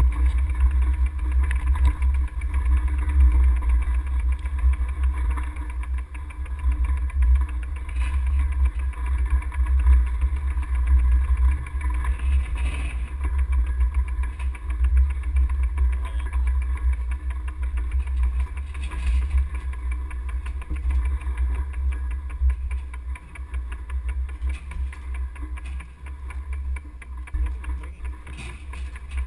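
Wind rumbling on the microphone of a camera mounted on a moving bicycle on a dirt road, over the steady running of a tracked excavator's diesel engine.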